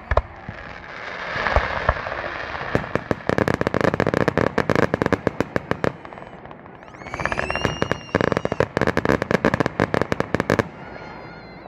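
Fireworks going off: two long runs of rapid crackling pops, the second one starting with high whistles, one of them rising.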